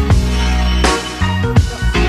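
Background music: a rock track with electric guitar and a drum kit keeping a steady beat.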